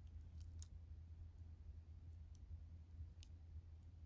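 Faint, scattered clicks of sterling silver charms and glass Murano beads knocking together on a charm bracelet as it is turned in the fingers, over a low steady hum.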